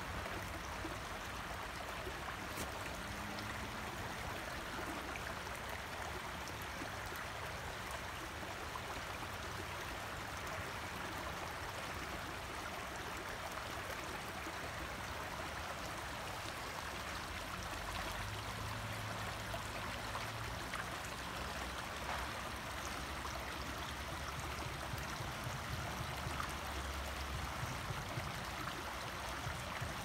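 Small shallow creek running over rocks: a steady, continuous babble of rippling water.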